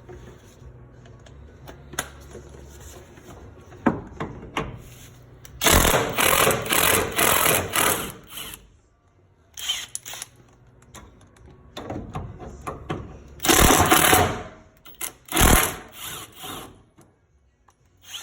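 Cordless power tool, an impact-type driver or wrench, spinning a 13mm socket in several bursts to loosen the bolts of a fuel tank guard. Its hammering rattle comes as one long run of a couple of seconds, then shorter spurts, with a few tool clinks in between.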